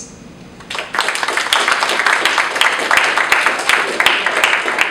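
Audience applauding, starting just under a second in: a dense, steady run of many hands clapping.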